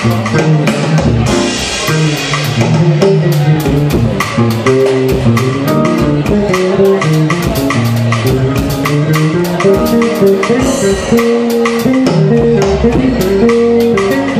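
Live band playing: a drum kit keeping a steady beat under an electric bass line and keyboard chords, with cymbal washes a couple of times.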